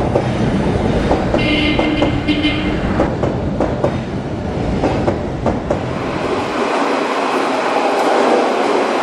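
Train running on rails, its wheels clicking over the track joints over a steady rumble. A brief high-pitched tone sounds about one and a half seconds in, and the deep rumble falls away near the end.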